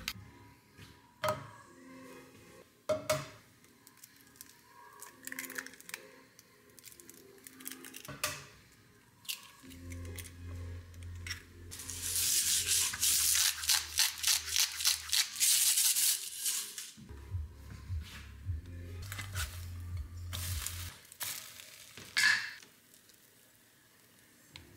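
Kitchen cooking sounds as eggs in a basket are made in a skillet: scattered clicks and knocks of eggs, pan and utensils, and a loud crackling, rustling stretch of about four seconds in the middle.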